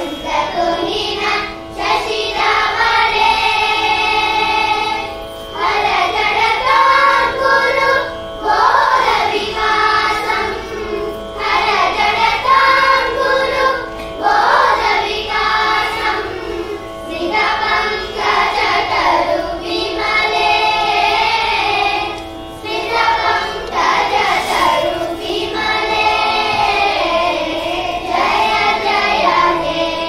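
Children singing a song together in melodic phrases a few seconds long, with short breaks between phrases.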